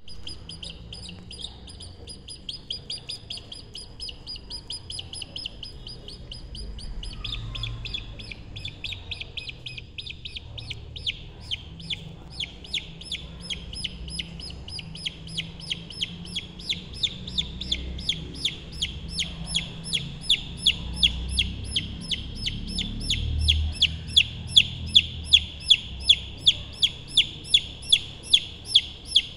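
A lone baby chick peeping: an unbroken string of short, high chirps, about two to three a second, growing louder from about halfway through.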